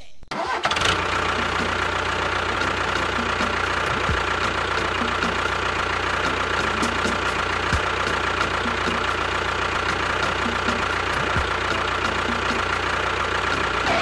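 Tractor engine running steadily. It starts abruptly just under a second in and cuts off right at the end, with a low thud about every three and a half seconds.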